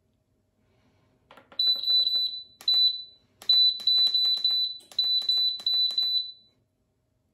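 Nesco digital pressure canner's control panel beeping with each button press, short high beeps in quick runs of several a second, with faint button clicks, as the processing time is stepped to 90 minutes. The beeping starts about a second in and comes in four runs.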